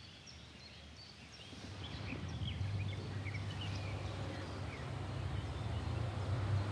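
Small birds chirping and singing with many short, high notes. A low, steady hum comes in about one and a half seconds in and grows louder toward the end.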